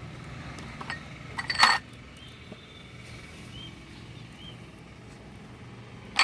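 Glass bowls clinking against each other: a single click about a second in, a short clatter about a second and a half in, and another clink at the very end.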